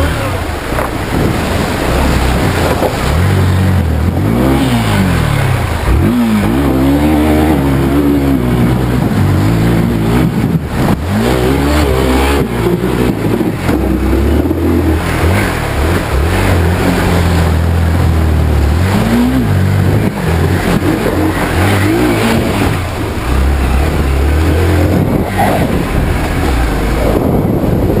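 Hero Xpulse 200's single-cylinder engine revving up and down again and again, over the wash of water around the bike, as it is ridden through a shallow rocky river.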